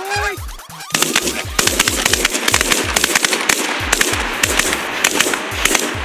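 Geese honking overhead, then about a second in a rapid volley of shotgun fire from several hunters, many shots overlapping for about five seconds. A music track's beat runs underneath.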